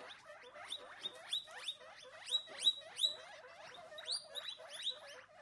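Guinea pigs squeaking: a rapid series of short squeaks, each rising in pitch, about two to three a second.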